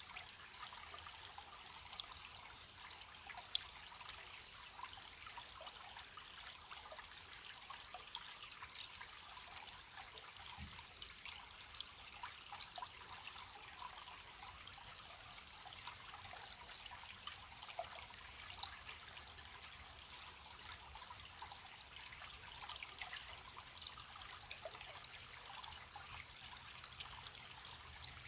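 Small stream trickling and babbling, with crickets chirping in a steady, evenly spaced high pulse behind it.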